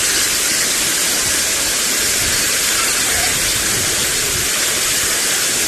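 Waterfall's water rushing down and splashing, a loud, steady hiss that sets in suddenly at the start.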